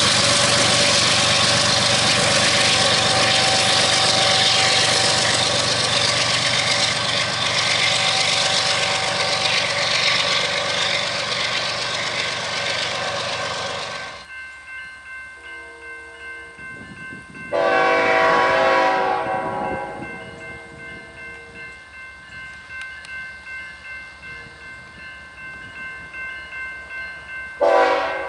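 A freight train rolling by close, locomotive and cars on the rails. About halfway in this gives way to a grade-crossing bell ringing steadily as a Union Pacific locomotive approaches sounding its horn: one long blast of about two and a half seconds, then a short one near the end.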